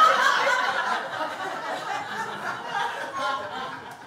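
Audience laughing at a stand-up punchline, the laughter loudest at first and gradually dying down.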